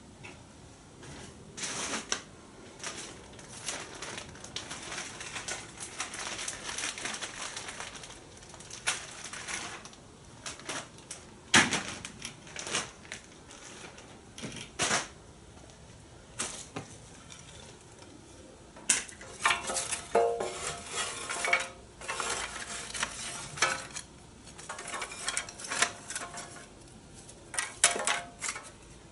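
Irregular clatter and clicking of metal cookware and utensils being handled, with a few sharper knocks and busier stretches of rattling.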